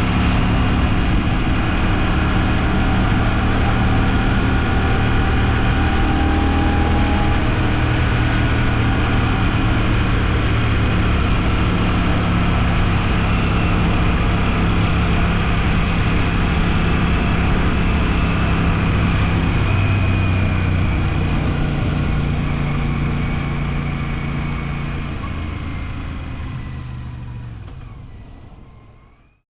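Royal Enfield Shotgun 650's parallel-twin engine running at a steady, even pitch, fading out over the last several seconds.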